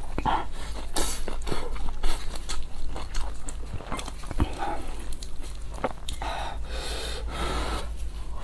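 Close-miked eating sounds: a person chewing and slurping noodles and pan-fried dumplings, with many small wet mouth clicks and audible breathing.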